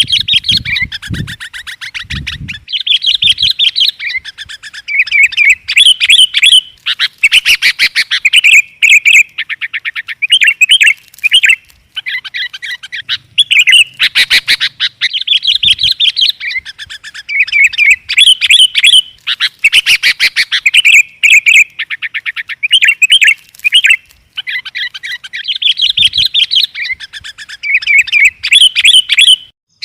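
Sooty-headed bulbuls (kutilang) calling and chattering: dense runs of quick, loud chirps broken by short pauses every few seconds.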